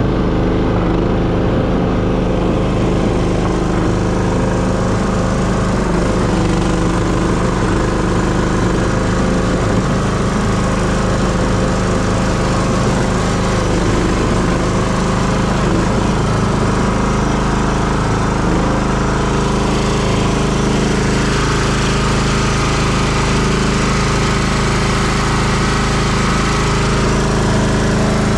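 Power buggy's Honda small engine running steadily while the buggy is driven, with small changes in pitch about two-thirds of the way through.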